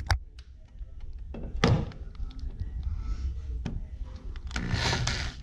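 Handling noises under a car body: a sharp knock, then a dull thunk about a second and a half in, a few light clicks, and a brief scraping rush near the end.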